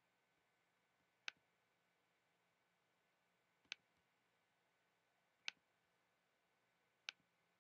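Four single computer mouse clicks, spaced one to two seconds apart, against near silence.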